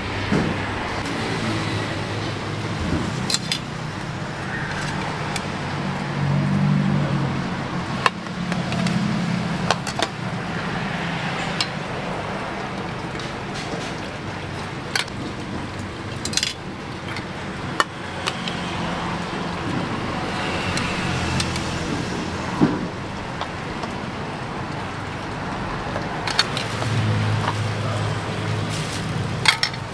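Road traffic: vehicle engines running, their hum swelling and fading as they pass. About nine sharp clinks and clicks sound over it.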